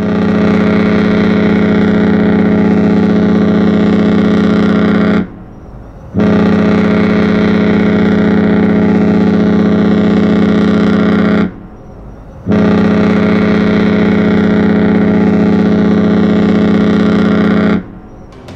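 Ship's horn sounding three long blasts of about five seconds each: a deep, steady tone with a pause of about a second between blasts.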